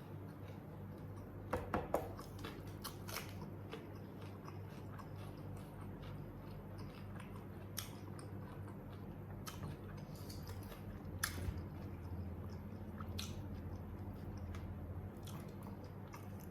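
Close-up chewing of ayam geprek (smashed fried chicken), with scattered small clicks and a few louder ones about two seconds in and around eleven seconds. A steady low hum runs underneath.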